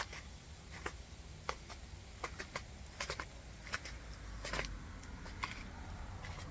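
Sharp plastic clicks, about a dozen at irregular intervals, from a Ryobi string trimmer head being turned by hand to wind new string onto its spool, over a low steady rumble.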